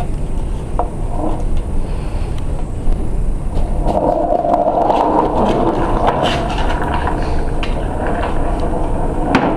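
Skateboard wheels rolling on a hard floor as puppies climb on and push the board, with scattered clicks and knocks. It grows louder in the middle.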